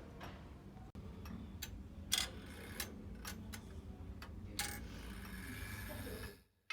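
Grandfather clock movement ticking as its pendulum swings: sharp clicks of the escapement every half second or so.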